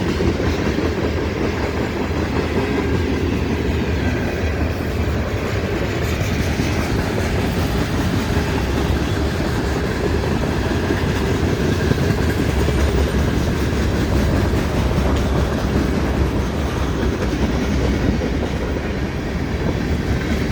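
Freight train's cars rolling past close by at moderate speed, a steady, loud noise of wheels on the rails.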